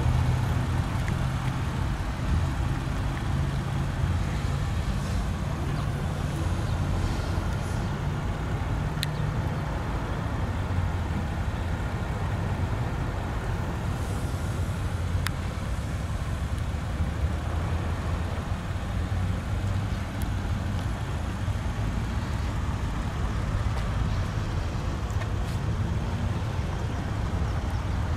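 Steady low rumble of motor vehicle noise, with a few faint clicks.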